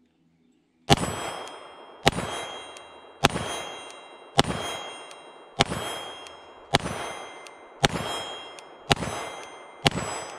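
Glock 34 9mm pistol with its stock barrel fired nine times at a steady pace of about one shot a second. Each shot is followed by the ringing clang of a steel target being hit.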